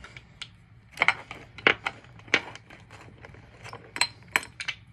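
Wax crayons clicking and tapping against one another as they are handled and gathered in the hands: a string of irregular sharp clicks.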